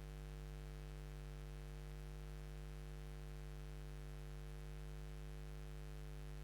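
Faint, steady electrical hum with several fixed low tones over a constant hiss, unchanging throughout.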